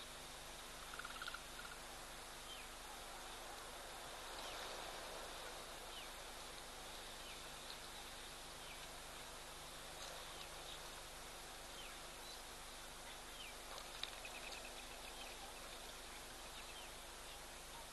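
Steady outdoor background hiss with faint bird calls: short downward whistles every second or so and a brief trill about a second in.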